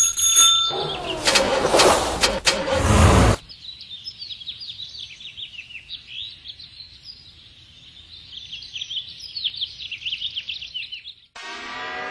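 Loud rushing noise for the first few seconds that cuts off abruptly. It is followed by many small birds chirping in a rapid, busy chatter of short high calls.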